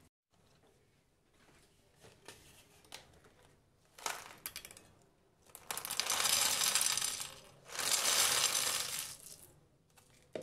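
Hard, candy-coated popcorn poured onto a plate, the pieces clattering and clinking as they land. A few scattered pieces drop first, a small handful about four seconds in, then two long pours of rattling pieces in the second half.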